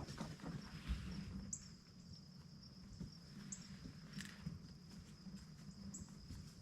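Faint woodland ambience with insects: a steady high-pitched trill, a short high chirp about every two seconds, and scattered small clicks and rustles.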